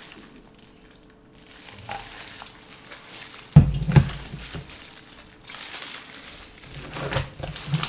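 Disposable plastic gloves and a plastic sauce bottle being handled, a crinkling rustle, with two sharp thumps about half a second apart a little past the middle.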